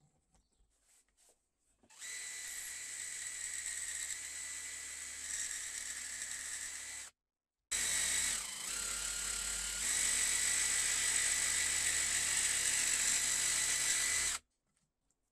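Electric jigsaw running and cutting through a wooden board to open a slot, a steady high motor whine with the rasp of the blade. It starts about two seconds in, cuts off suddenly for half a second near the middle, then runs on louder and stops about a second before the end.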